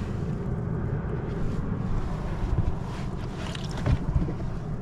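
Wind buffeting the microphone in a steady low rumble over the wash of the sea around a small boat, with a brief louder burst near the end.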